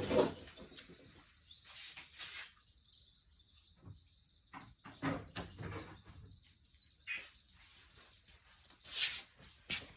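Scattered knocks, clicks and rustling from things being handled and set down, about a dozen separate sounds, the loudest right at the start and about nine seconds in, with a faint thin high whistle held for several seconds in the middle.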